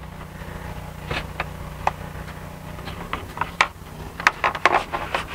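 Railing balusters clicking and knocking as they are bent and pushed up into the top rail of a Trex railing kit: a scatter of sharp taps, coming thicker and quicker in the last couple of seconds.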